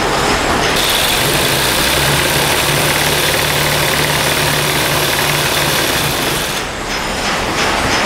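Electric-motor-driven Rama sewing machine running, stitching plastic edging tape onto a korai grass mat; it runs steadily with a low hum from about a second in, stops briefly near the end, then starts again.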